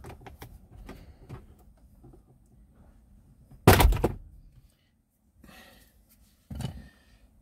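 Plastic clips of a Smart Forfour's upper steering-column cowling being prised loose with a trim panel tool: a few faint clicks, then one loud sharp snap a little before halfway as a clip lets go and the cowling lifts, and a second, quieter knock near the end.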